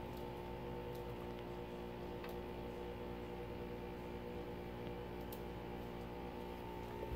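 A steady low hum made of several level tones, with a few faint ticks scattered through it.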